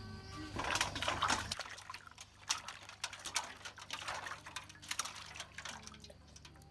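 Water splashing and sloshing in a metal basin as peeled bamboo shoots are rinsed by hand, with a louder splash about a second in, then a run of short splashes and drips as a shoot is lifted out of the water.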